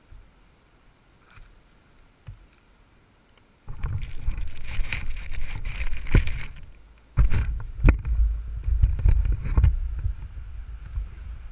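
Quadcopter motors and propellers spinning up for takeoff about three and a half seconds in, after a few quiet seconds: a sudden loud rush of propwash buffeting the onboard camera's microphone as a low rumble. It dips briefly about seven seconds in, then surges again with low thumps as the craft lifts off.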